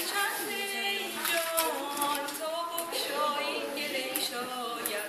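A woman singing solo, unaccompanied, holding and bending sung notes.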